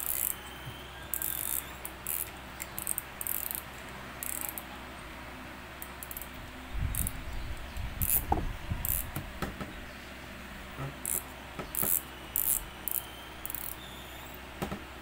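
Daiwa Regal LT1000D spinning reel being turned and worked by hand. Its mechanism gives short, high-pitched clicking rasps at irregular intervals. A few dull handling bumps come around the middle.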